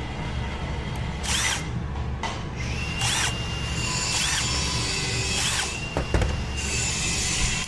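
Four short bursts of a small power screwdriver or drill motor spinning up and down, over a steady low shop hum.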